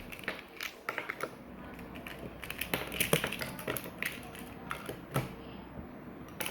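Plastic puzzle-cube pieces clicking and snapping as they are pulled out of a Puppet Cube by hand, in irregular clicks and clatters.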